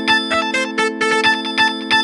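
Siemens Xelibri phone ringtone playing: a synthesized tune of quick repeated notes, about three a second, over a held low chord.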